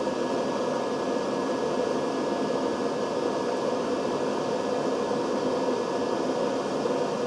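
Steady whirring hiss with a faint hum, the even running noise of a fan.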